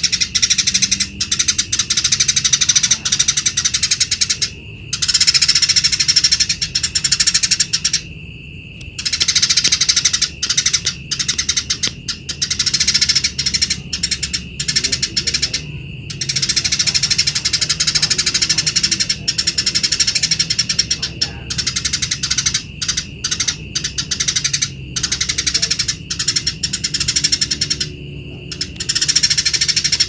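Eurasian tree sparrow singing nonstop in long runs of rapid chattering chirps, each run lasting several seconds, with short breaks between them.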